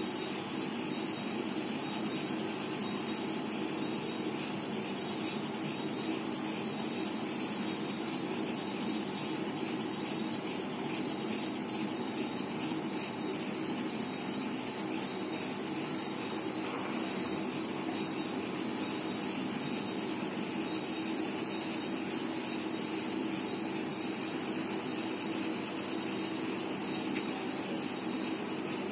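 Steady, high-pitched chorus of night insects, unbroken throughout, with a fainter low hum beneath.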